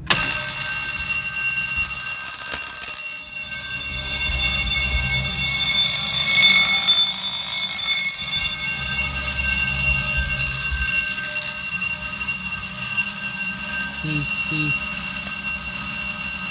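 Simplex 2901-9723 fire alarm motor bell ringing loudly and continuously, starting abruptly as the system goes into alarm from a pulled manual pull station.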